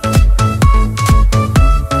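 Electronic dance music with a steady kick-drum beat, about two beats a second, under a synth melody.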